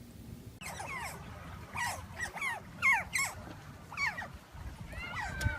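Dog whimpering: a run of short, high whines, each falling in pitch, one after another.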